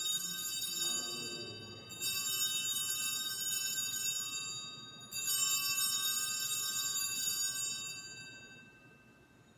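Altar bells rung three times at the elevation of the chalice, marking the consecration. A cluster of small bells rings out with a bright, many-toned ring. Fresh rings start about two and five seconds in over the tail of one struck just before, each holding for a few seconds before fading away.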